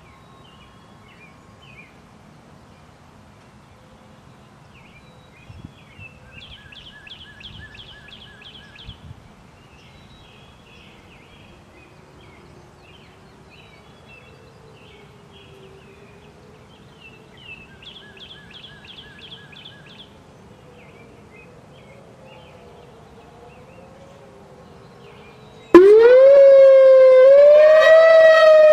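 Quiet outdoor ambience with bursts of birdsong and a faint wavering tone. Near the end a Whelen 4004 tornado siren starts its test signal suddenly and very loudly, sweeping up in pitch and then holding a steady high wail.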